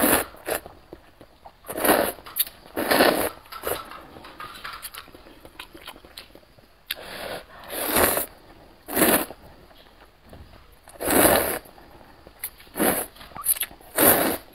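Glass noodles (vermicelli) slurped up from a bowl of spicy broth: about ten separate sucking slurps at an uneven pace, each under a second, with quieter chewing between.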